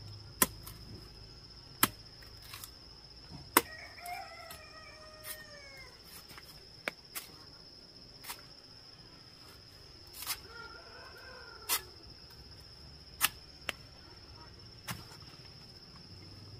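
Machete blade chopping into a green banana stalk to sever the banana hands, in sharp single chops every second or two. A rooster crows twice, about four and ten seconds in.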